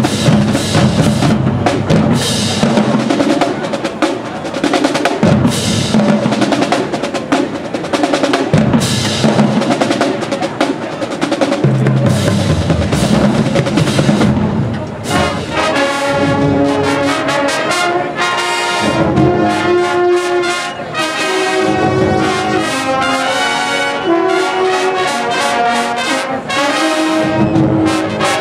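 Marching band in performance: the drumline plays a fast, dense cadence for about the first half, then the brass section, sousaphones among it, comes in about halfway through with loud held chords over the drums.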